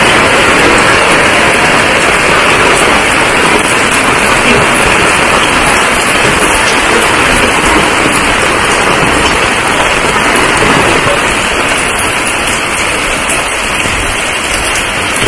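Heavy rain pouring onto a wet paved street: a loud, steady, dense hiss of falling water.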